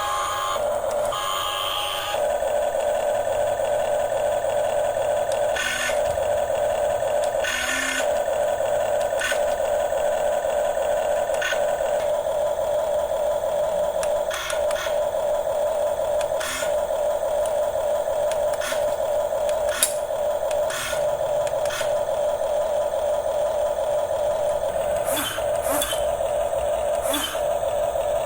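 Small electric motor and plastic gearing of a remote-control model construction vehicle whining steadily, with scattered clicks and clatters from the moving parts.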